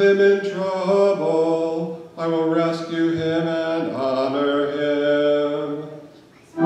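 A man's solo voice chanting the liturgy, holding notes on a reciting tone and stepping down in pitch to a cadence that fades out near the end.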